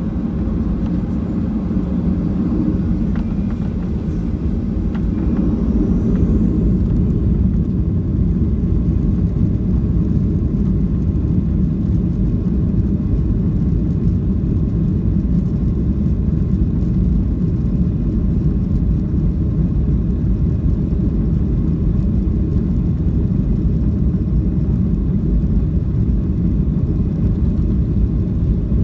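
Cabin noise inside a Boeing 737 rolling on the ground: a steady low rumble of the jet engines and wheels, growing a little louder a few seconds in and then holding steady.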